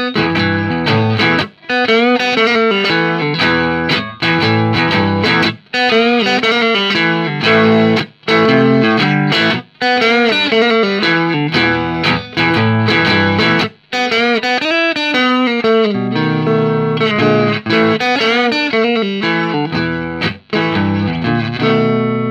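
Electric guitar playing chords and picked phrases, with short breaks between them and wavering, vibrato-like notes. It ends on a chord left to ring out.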